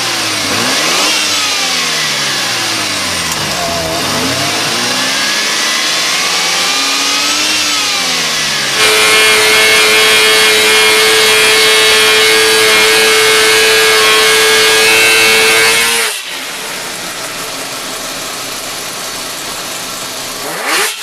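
Mazda rotary engine revving up and down in several sweeps, then a four-rotor 26B rotary engine on an engine dyno held at a steady high rpm for about seven seconds, the loudest part, with its exhaust headers glowing red-hot under load. It drops off suddenly to a quieter, steady engine drone near the end.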